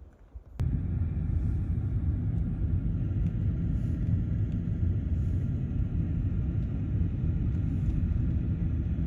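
Steady low rumble of a vehicle on the move, cutting in abruptly about half a second in.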